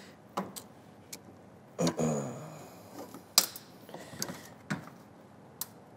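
Scattered light clicks and taps of a long pry tool working at a trim clip behind the front wheel opening of a Chevrolet Silverado 2500HD, prying the clip loose. The sharpest click comes about three and a half seconds in.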